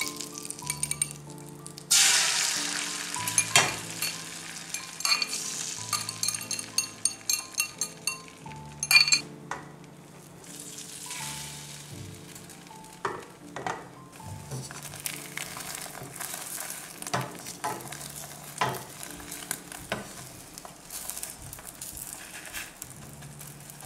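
Food frying in a pan. A loud sizzle starts suddenly about two seconds in and fades, with a run of sharp clinks and taps and later scattered knocks. Background music with held notes plays underneath.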